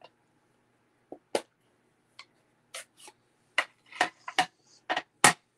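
Plastic clicks and taps as a Stampin' Pad ink pad's hard plastic case is opened and handled on a craft mat. There are about a dozen short, irregular clicks, and the loudest comes near the end.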